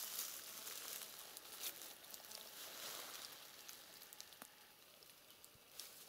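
Faint rustling and crackling of dry grass, leaves and twigs with scattered small clicks, as someone creeps slowly through bushes; it is a little louder for the first two seconds, then quieter.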